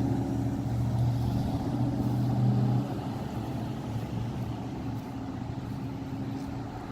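A motor vehicle engine running with a steady low hum that drops away about three seconds in, leaving quieter background noise.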